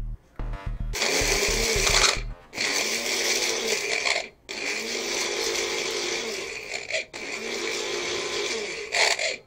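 Electric mixer grinder running in four bursts with brief breaks between, grinding coarse firecracker powder. A thumping music beat plays under the first two seconds.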